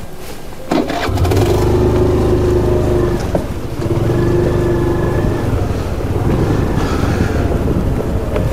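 A motor vehicle running with a low, steady rumble. A held tone sounds over it twice, from about a second in and again around four seconds in.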